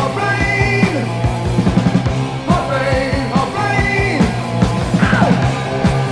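Early-1980s British heavy metal song, with electric guitars, bass and steady drum hits playing. A high melodic line bends and falls in pitch over them several times.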